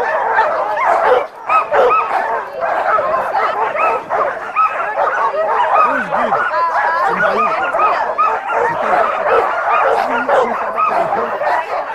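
A team of sled dogs barking, yipping and whining all at once in a dense, unbroken chorus of overlapping high calls.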